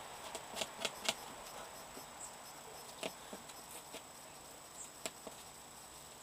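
Fingernails picking and scratching at packing tape on a cardboard box: small scattered clicks and scrapes, a quick cluster about a second in, then single ones around three and five seconds.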